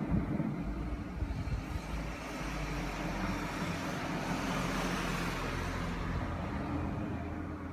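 A road vehicle passing, its rumble and hiss swelling about halfway through and fading near the end.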